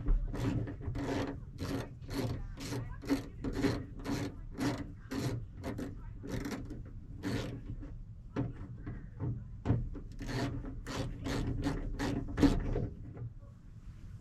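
A ratchet with a 10 mm socket worked back and forth to loosen a bolt: a short rasping click on each stroke, about two a second, stopping shortly before the end.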